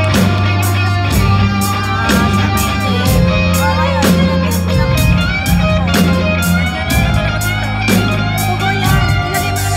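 Live blues band playing: electric guitar leading with bending notes over bass guitar and a drum kit keeping a steady beat.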